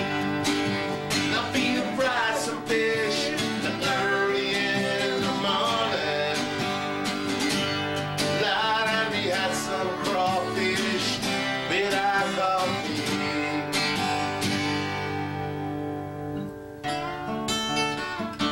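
A man singing to his own strummed acoustic guitar. The voice drops out about two-thirds of the way through, leaving the guitar strumming on its own.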